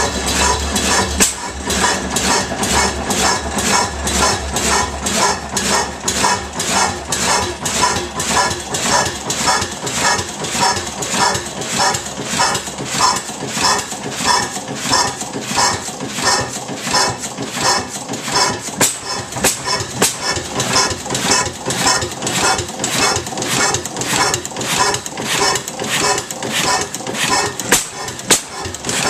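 6 HP Otto sideshaft hit-and-miss gas engine running, a steady clatter of sharp metallic clicks at roughly two to three a second.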